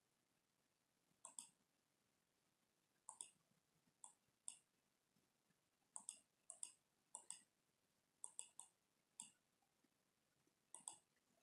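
Faint computer mouse clicks, scattered irregularly and often in close press-and-release pairs.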